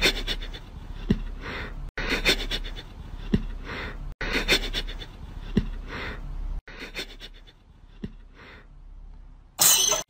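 A sleeping puppy breathing in noisy panting breaths, heard in repeated stretches of about two seconds that cut off abruptly, with a louder burst just before the end.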